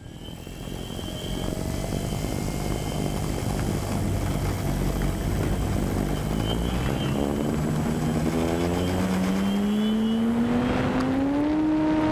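Hangar 9 P-40 Warhawk RC model's motor and propeller running low with a rough rumble. From about seven seconds in it climbs steadily in pitch as the throttle opens for the takeoff run, then holds a steady high note near the end as the plane lifts off.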